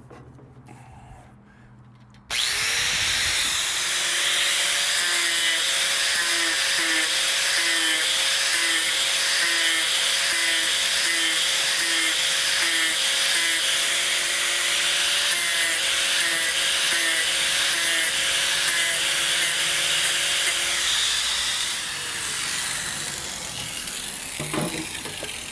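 Angle grinder starting abruptly about two seconds in and grinding down a wooden walking-cane handle. The grinding is a loud, steady whine with a rasping hiss whose note wobbles regularly as the disc works the wood. The motor winds down near the end, leaving a few light knocks.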